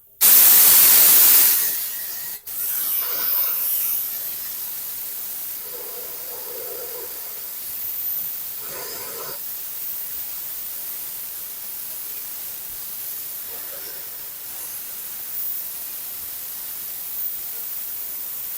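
Compressed-air blow gun hissing as it blows out a tiller's fuel tank to clear water and dirt. A loud blast for the first second and a half, a brief break, then a steadier, quieter hiss.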